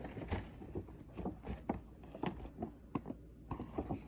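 Cardboard toy box with a clear plastic window being handled and turned over: irregular crinkles, taps and scrapes of the packaging.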